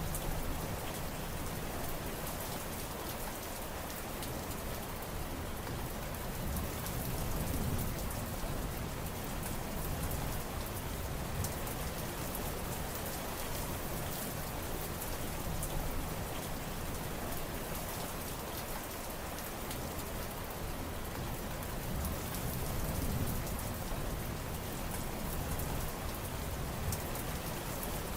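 Steady heavy rain falling on surfaces, with individual drops ticking through the hiss and a low rumble that swells and fades twice.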